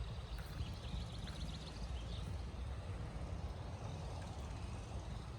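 Songbirds singing faintly in woodland: scattered chirps and a short rapid trill in the first couple of seconds, over a steady low rumble.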